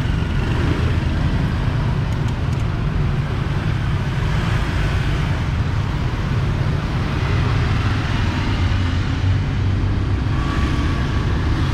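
Steady street traffic noise from motor vehicles, with a constant low rumble and no single event standing out.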